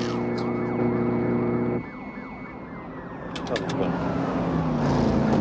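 Car chase soundtrack: pursuit car engines running hard under a wailing police siren, whose pitch slowly falls in the second half. The sound changes abruptly about two seconds in, and a quick run of sharp clicks comes a little after three seconds.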